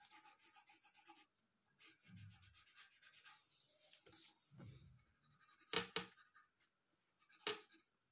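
Colored pencil scratching across paper in quick back-and-forth shading strokes, faint. In the second half, a few sharp taps stand out as the loudest sounds.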